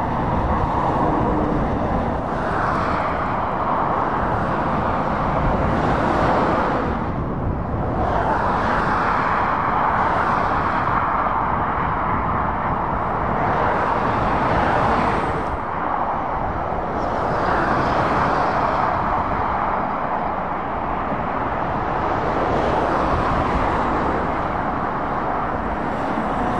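Articulated lorries and cars passing on a dual carriageway, their tyre and engine noise swelling and fading as one vehicle after another goes by.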